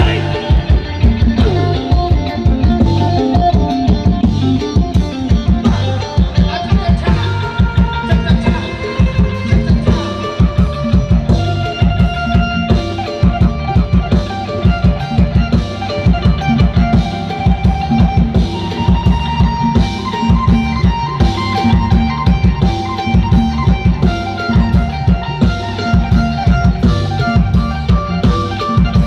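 Loud instrumental music with a steady drum-kit beat of kick and snare and a held melody line, played back through outdoor PA speaker cabinets from a mixer.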